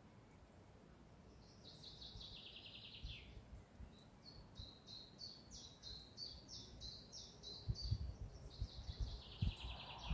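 Wild songbirds singing: a quick descending trill, then a run of short repeated high notes at about three a second, then another descending trill near the end. A few low thumps come in the second half.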